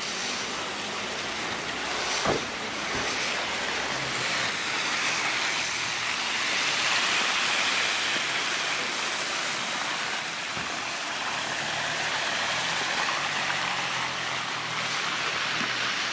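Traffic on a wet, slushy street: a steady hiss of tyres on the wet road, swelling as a van passes about halfway through. A short sharp knock about two seconds in.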